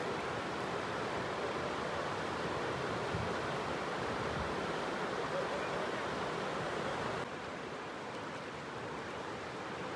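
Whitewater rapids rushing steadily. The rush drops a little quieter about seven seconds in.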